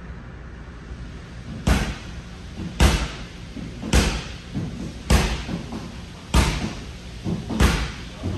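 Sharp, loud hits at an even beat, about one every 1.2 seconds, over a low steady background.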